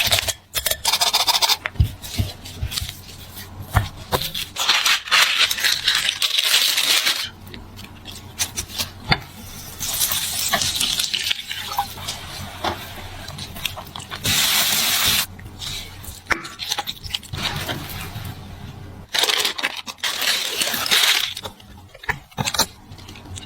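Food preparation sounds: several short bursts of hissing or rustling noise, each a second or two long, with scattered clicks and knocks from utensils and dishes in between.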